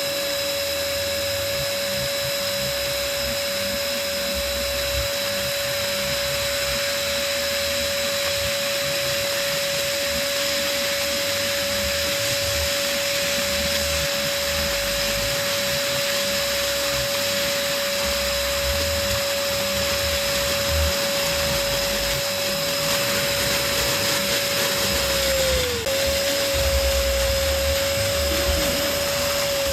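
Electric balloon pump running steadily with a continuous hum and hiss, inflating a balloon. Near the end its pitch sags for a moment, then picks up again.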